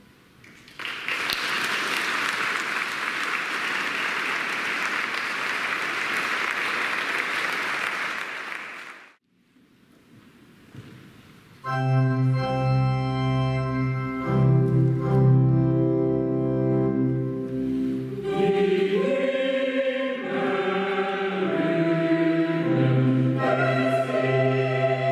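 Audience applause for about eight seconds, stopping abruptly. After a short gap, an organ starts sustained chords with a deep bass, and about six seconds later a mixed choir comes in singing over it.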